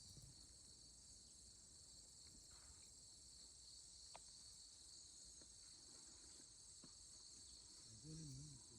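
A faint, steady high-pitched chorus of crickets and other grass insects, with a short low voice-like sound near the end.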